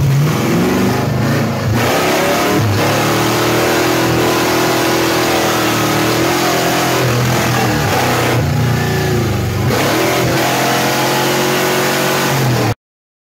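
Chevy 6.0-litre LQ4 V8 in a 1993 Mazda RX-7 drift car, heard from inside the caged cabin, revving hard with its pitch rising and falling as the driver works the throttle. The sound cuts off suddenly near the end.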